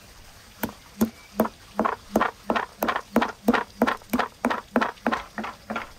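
Wooden pestle pounding rosemary, coarse salt and black peppercorns in a wooden mortar: a steady run of hollow knocks, about three a second, starting just after half a second in.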